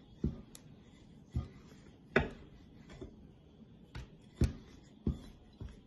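Wooden rolling pin knocking against a stone countertop while naan dough is rolled out: a string of short, irregular knocks, one or two a second, the loudest about two seconds in.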